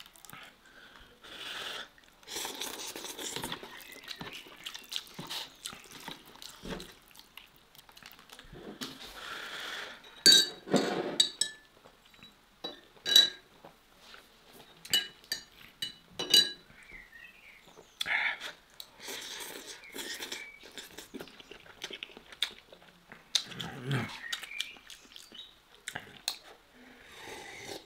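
Slurping and chewing of instant noodles, with a metal fork clinking sharply against a dish in a run of clinks about halfway through.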